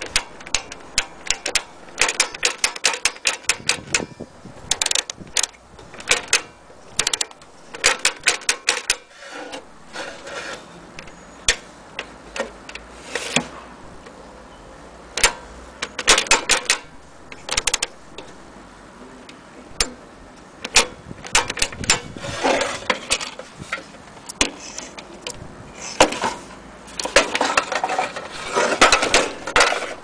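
Mettoy Supertype metal toy typewriter being worked by hand: sharp mechanical clicks and clacks from its type lever and selector dial, coming in irregular clusters of rapid clicks with short pauses between.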